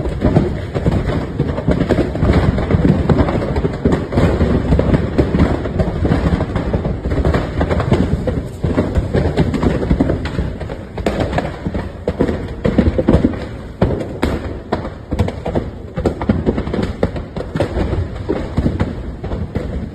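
A burning truck: a dense, irregular run of crackling pops and thuds over a steady low rumble from the fire.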